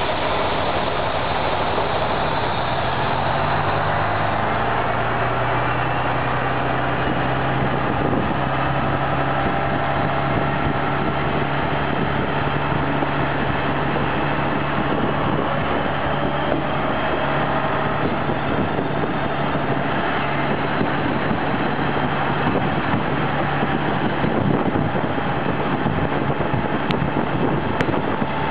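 Engine of a 1950s Brossel ES401 catenary railcar running as the railcar pulls away, its pitch stepping up a few seconds in. The rumble and rattle of the bogie running on the rails grows as it gathers speed.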